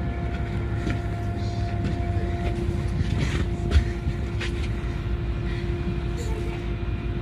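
Fishing boat's engine running steadily with a low hum, with a few light clicks and one sharp knock a little under four seconds in.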